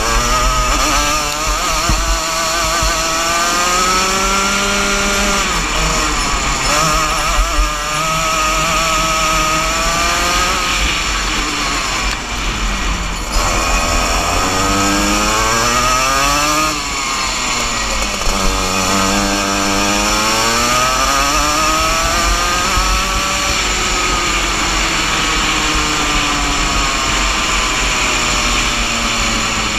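A 125cc Junior Max two-stroke kart engine at racing speed, its high buzzing pitch climbing on the straights and dropping sharply as the driver lifts and brakes for corners, several times over, with wind noise on the microphone.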